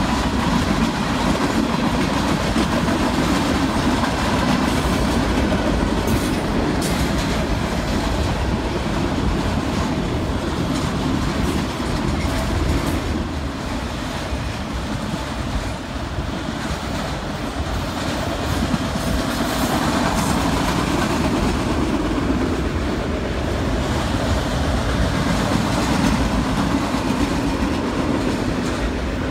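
Freight cars rolling past: tank cars and autorack cars running over the rails with a steady rumble and the clickety-clack of steel wheels over rail joints.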